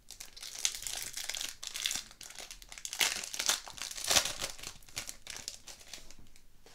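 Foil-lined trading-card pack being torn open and pulled apart by hand: irregular bursts of crinkling and crackling, loudest about three and four seconds in.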